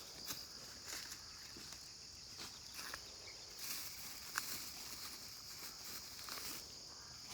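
Insects droning steadily at a high pitch, with a few faint clicks and rustles on top.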